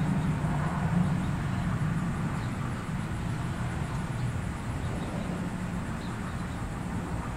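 Low, steady rumble of a distant engine that slowly fades.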